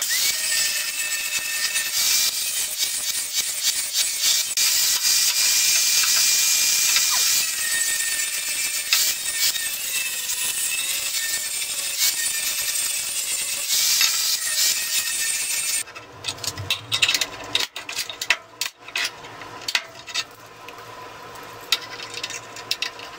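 Angle grinder grinding the edges of square steel tubing to prepare them for welding, running steadily for about sixteen seconds and then cutting off. After it come scattered metal clinks and knocks as the tubing and locking clamps are handled on the steel table.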